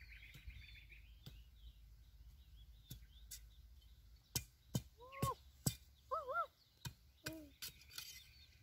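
Knife blade cutting the rind off a sugarcane stalk in short downward strokes, making a series of sharp, separate clicks and scrapes. A few short birdlike chirps, rising then falling in pitch, come in the second half.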